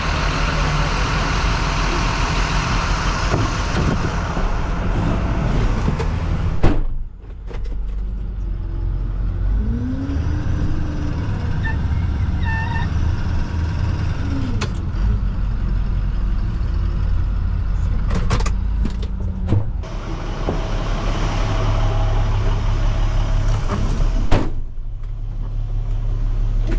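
Truck engines running, with an engine's pitch rising and falling once in the middle. A sharp knock sounds about seven seconds in and another near the end.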